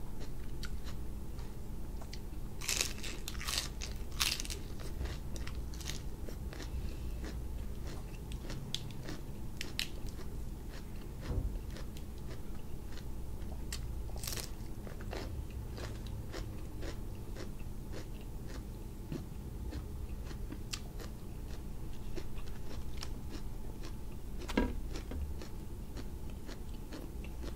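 A person biting and chewing crisp romaine lettuce wrapped around grilled cuttlefish: wet crunches and clicks of chewing, with the crispest bites about three seconds in and again about fourteen seconds in. A low steady hum runs underneath.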